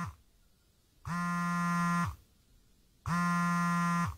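Smartphone on vibrate buzzing against a tabletop with an incoming call: two even one-second buzzes, about a second apart, at one steady pitch.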